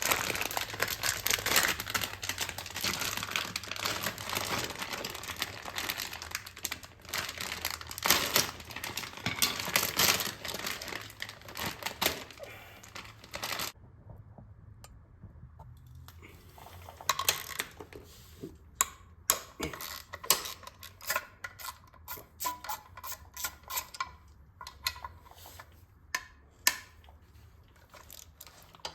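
Hands at work on a motorcycle during a chain change: crinkling and rustling for the first dozen seconds or so, then after a short lull a scattering of sharp clicks and light taps from parts and tools being handled.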